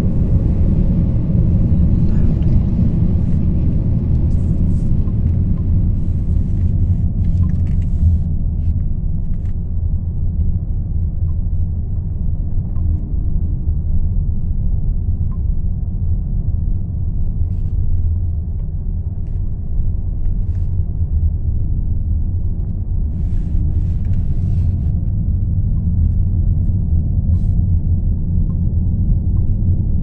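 Steady low rumble of a car driving on a paved road, heard from inside the cabin, with a few faint clicks here and there.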